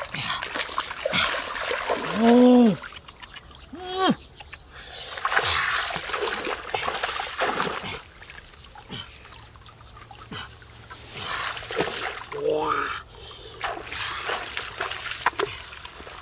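Muddy water splashing and sloshing as a wader gropes with his hands in a shallow ditch, busiest in the first half and in short bursts later. Cut through by a loud short call that rises and falls in pitch about two seconds in, and two fainter calls later.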